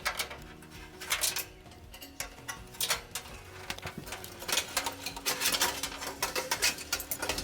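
Scattered light clicks and taps of small metal parts and screws being handled, part of reassembling the appliance's heater housing.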